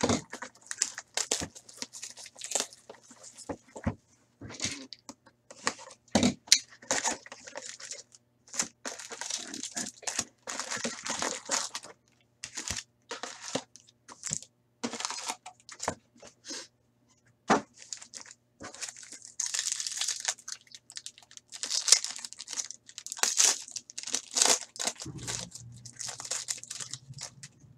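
Packaging of a box of Black Diamond hockey cards being opened: foil card packs crinkle as they are handled and rip as they are torn open, in irregular crackles and tears.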